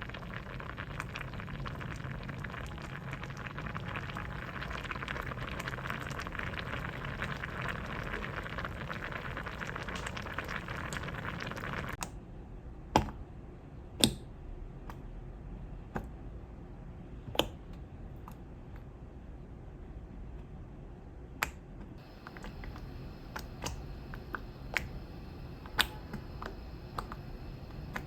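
Pot of vegetable soup boiling, a steady bubbling that stops suddenly about twelve seconds in. After it, scattered sharp clicks and taps, a dozen or so spread over the rest.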